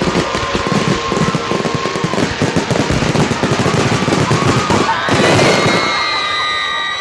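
Fireworks display: a dense, rapid barrage of firework bangs and crackles for about five seconds, ending in a louder burst followed by long high whistles.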